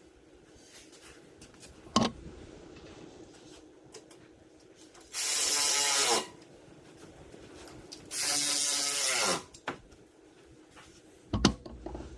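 Handheld power tool run twice in bursts of about a second, each time its motor pitch falling as it spins down, with a couple of sharp knocks from parts or tools being handled.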